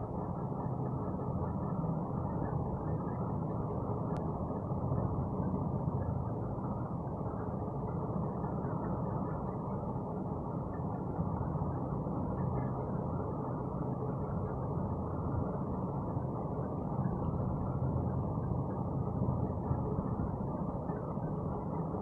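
A steady low mechanical rumble that runs on without pauses.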